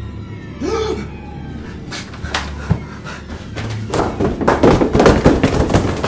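A short rising-and-falling cry about a second in, then a growing flurry of thumps and bangs, thickest and loudest in the last two seconds.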